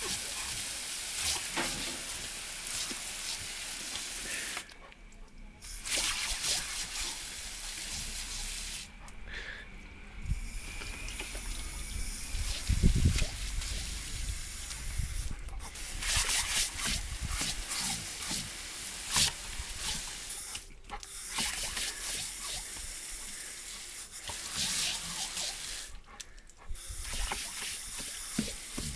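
A dog drinking water, with a steady splashing, running-water sound broken by a few short pauses.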